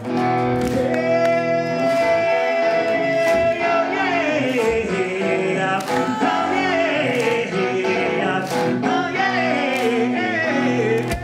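Live hard rock band playing loud, with distorted electric guitars and a drum kit, heard from within the crowd. Sustained guitar notes are broken by falling slides that recur every couple of seconds over a steady drum beat.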